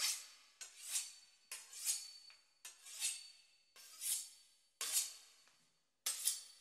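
A knife sawing through the crisp puff-pastry crust of a beef Wellington: a rasping stroke roughly once a second, each starting sharply and fading away.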